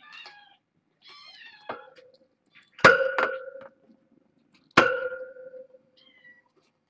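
Young kittens meowing, two short high calls in the first second and a half. Several sharp knocks, each with a brief metallic ring, cut across them; the loudest come about three and five seconds in.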